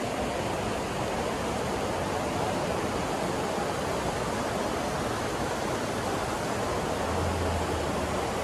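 Steady rushing of a mountain river's rapids, shallow white water running over boulders. A low hum joins near the end.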